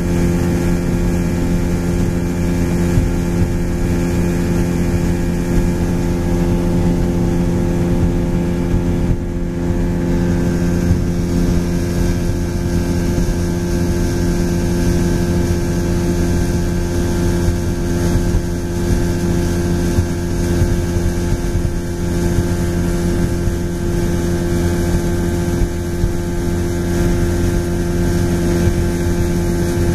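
Motorboat engine running steadily under way, a constant droning hum, with wind noise over the microphone.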